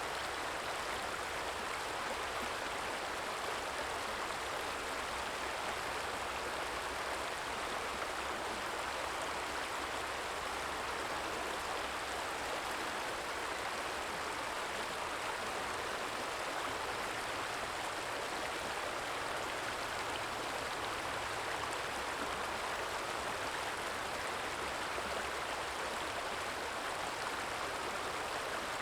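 Small stream trickling and flowing over stones, a steady even rush of running water.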